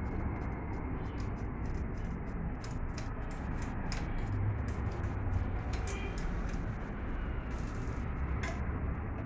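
Quick, irregular metallic clicks and taps of a spanner turning a bolt on a Honda EP1000 generator's steel frame, over a steady low background rumble.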